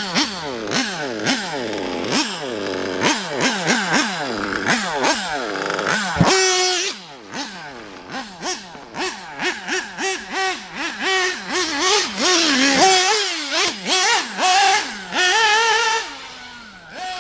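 Nitro RC car's Alpha Plus .21 two-stroke glow engine with a tuned pipe, revving up and dropping off again and again as it is driven, its pitch rising and falling with each throttle blip. A sharp thump about six seconds in, after which the engine sounds farther off, then longer high-revving stretches near the end.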